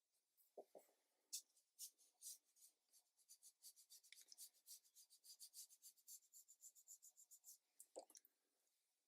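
Faint scratchy strokes of a watercolour brush on heavy cotton watercolour paper: a few separate strokes, then a quick run of short strokes, about five or six a second, for several seconds. A soft knock sounds near the start and again near the end.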